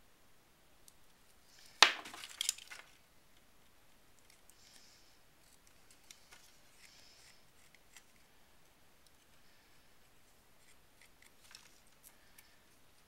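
A sharp click or clack about two seconds in, followed by a second of rustling and small clattering as small objects are handled on a work surface, then only faint scattered taps and rustles.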